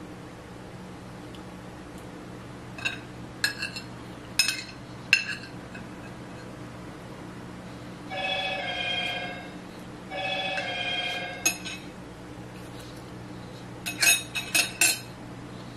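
Cutlery clinking against a dinner plate in short clusters of taps, loudest near the start and again near the end. In between, a telephone rings twice with a warbling two-tone ring, each ring about a second long.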